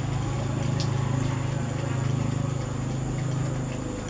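Steady low hum of an engine running, with a fine rapid flutter, and a thin steady high whine above it.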